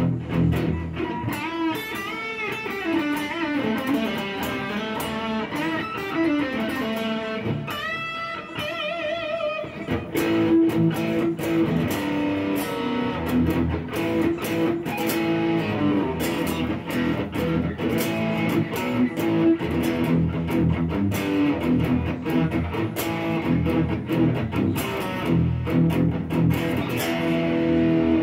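Fender Stratocaster-style electric guitar played clean: a lead line whose notes waver in pitch over the first ten seconds or so, then steadier picked chords that ring on.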